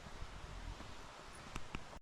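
Faint outdoor rustling with wind noise on the microphone, and a couple of light clicks near the end.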